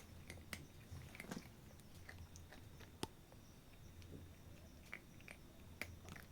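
A cat eating: faint, irregular chewing and crunching clicks, with one sharper click about three seconds in.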